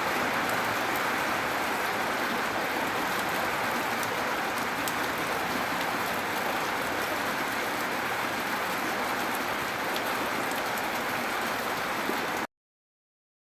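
Gentle, constant rain falling: an even hiss with faint scattered drop ticks. It cuts off suddenly near the end.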